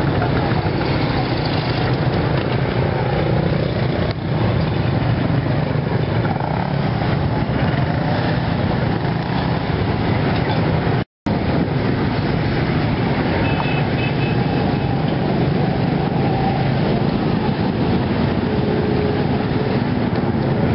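Steady roadside traffic noise, with motorbike and other vehicle engines passing close by. The sound cuts out completely for a moment about eleven seconds in.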